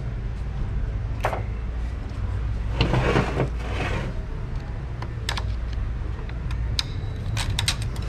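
Small metal clicks and scrapes as a pick works the snap ring out of a Ford 10R80 CDF clutch hub, over a steady low shop hum. A longer, louder scrape comes about three seconds in, and the sharp clicks cluster in the second half.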